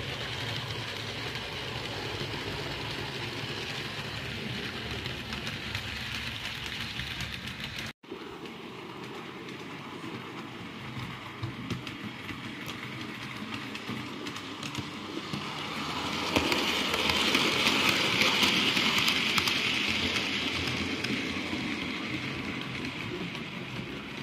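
Model railway train running on the layout's track, a steady whirring and rolling of the wheels and motor. It grows louder as the train passes close by about two-thirds of the way through, then fades as it runs away.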